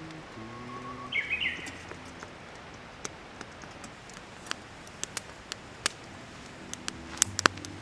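Wood fire crackling in a fire pit, with irregular sharp pops that come thicker near the end. Soft background music notes fade out early and return near the end, and a brief high chirp sounds about a second in.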